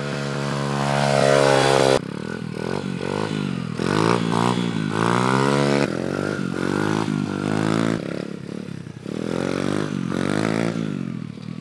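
Apollo 125cc dirt bike's small single-cylinder four-stroke engine being revved hard as it is throttled up into wheelies. The engine note climbs steadily, breaks off suddenly about two seconds in, then rises and falls several times in quick succession.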